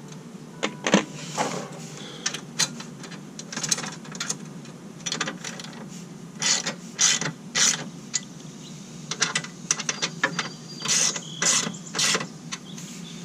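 Hand ratchet wrench clicking in short, irregular bursts as bolts are worked during a skid plate and bracket install, with single metallic clicks and taps in between.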